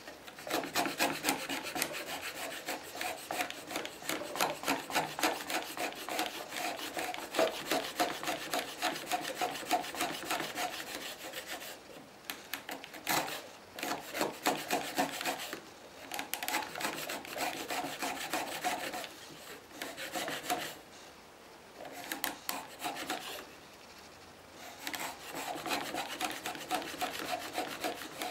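A shop-built long-based hand router plane scraping its cutter over wood in quick short strokes, shaving out a shallow recess. The strokes come in runs broken by a few short pauses.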